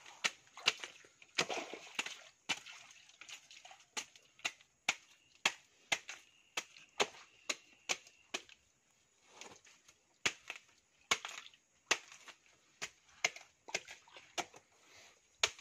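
Machete (bolo) blade striking repeatedly into a fibrous, wet plant stump, a short sharp chop roughly every half second to second.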